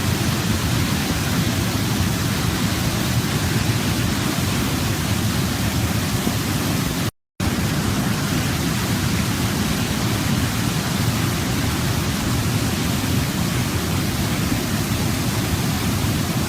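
Waterfall: a steady, even rush of falling water, cutting out completely for a moment about seven seconds in.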